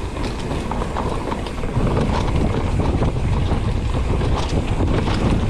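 Wind buffeting the microphone on a mountain bike during a trail run, over a steady rumble of tyres on dirt and the rattle and clatter of the bike over the ground.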